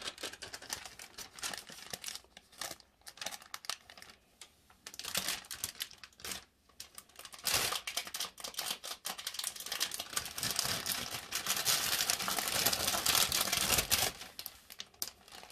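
Clear plastic bag crinkling and crackling as a cat shifts around inside it and a hand pats the plastic. Sparse crackles at first, then denser, louder crinkling from about halfway through until near the end.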